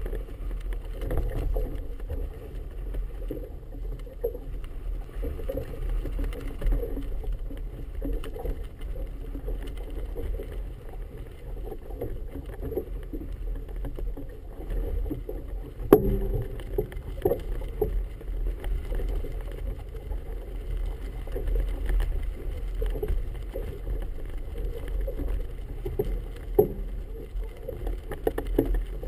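Wind buffeting the camera and choppy water slapping against the hull of a moored motorboat, heard muffled, with irregular small knocks and one sharp knock about sixteen seconds in.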